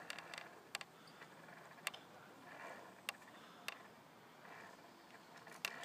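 A handful of sharp, irregular clicks and knocks, about six over several seconds, from a swinging rope-and-plank bridge on a high ropes course as a person steps across it, with its wooden steps and metal safety gear knocking.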